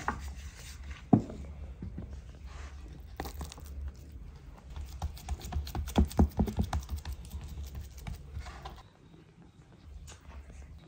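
Hands handling and pressing raw ground-meat burger patties on a wooden cutting board and steel tray: scattered soft slaps, taps and knocks, with a sharp knock about a second in and a quick run of them midway. A steady low hum underneath stops near the end.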